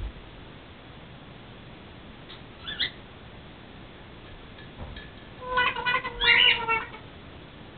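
African grey parrot calling: a short rising chirp a little under three seconds in, then a louder run of pitched, broken calls lasting just over a second from about five and a half seconds in.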